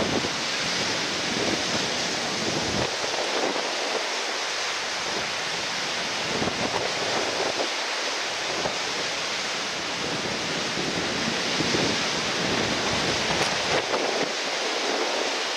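Strong gusty wind buffeting the microphone over a steady hiss of surf, with no let-up.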